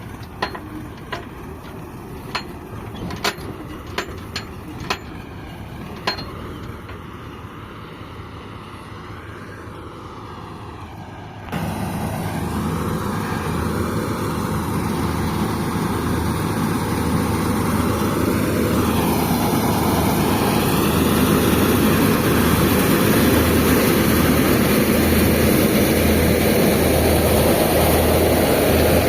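Farm diesel engine running steadily, with several sharp knocks or clanks in the first few seconds. About twelve seconds in, the engine noise jumps suddenly to a louder, fuller running sound that keeps getting louder towards the end.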